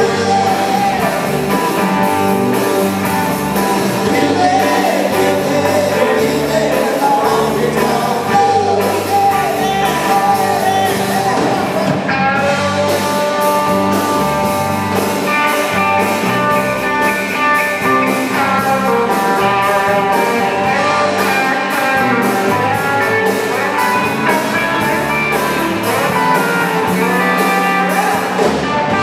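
Live rock band playing a rock and roll number: electric guitars and drum kit, with a lead vocal singing over them.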